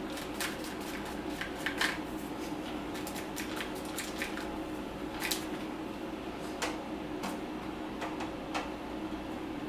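Hands pressing and working a StompGrip traction pad onto a motorcycle tank: irregular light clicks and crackles over a steady background hum.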